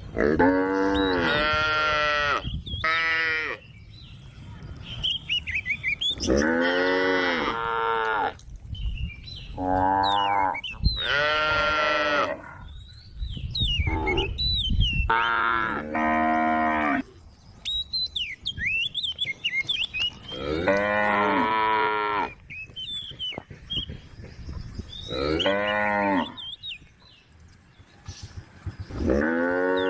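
Cows mooing over and over: long, drawn-out calls that slide in pitch, coming every few seconds. Birds chirp faintly between the calls.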